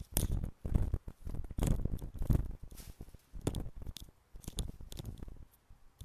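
Rummaging through paint supplies: an irregular run of clicks, knocks and rustles as small items are picked up, moved and set down.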